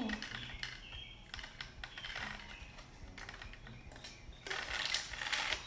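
Light, irregular clicks and taps of small objects being handled, growing busier and louder near the end.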